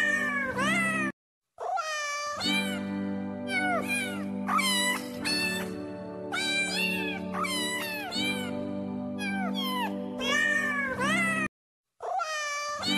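Domestic cat meows in repeated groups of rising and falling calls, laid over a music track with sustained notes. The sound cuts out completely for about half a second twice, about a second in and near the end.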